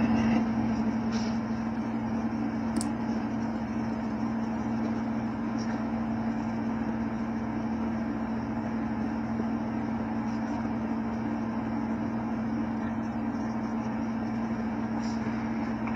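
Steady room tone: a constant low hum under an even hiss, with a few faint ticks.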